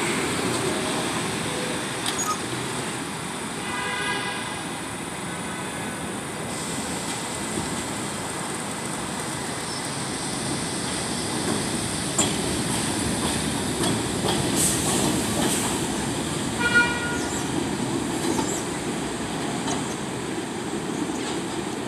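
R68-series subway train pulling out of an elevated station and running away down the track with a steady rumble. Two short toots sound, about four seconds in and again about seventeen seconds in.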